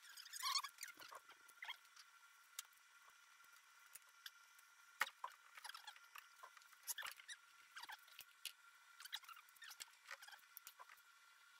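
Faint scattered clicks, taps and scraping of hand work on thin aluminium sheet and tools at a workbench, with a brief cluster just after the start and one sharp click about five seconds in.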